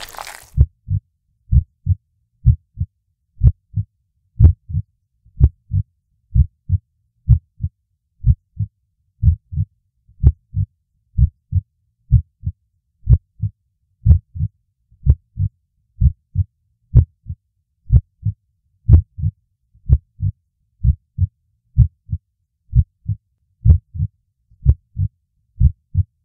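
Heartbeat sound effect: low, dull thumps in lub-dub pairs, about one heartbeat a second, steady throughout.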